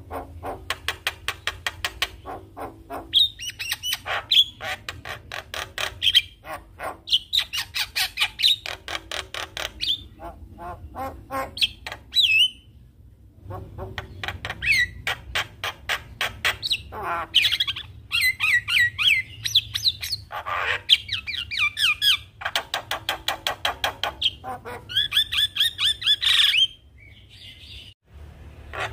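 Javan myna singing a long, varied song: rapid rattling chatter mixed with whistled and harsh notes, with a short break about halfway through and another near the end.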